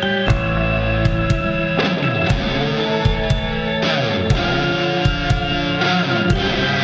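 Rock music with guitar playing sustained notes and chords, over regular drum hits.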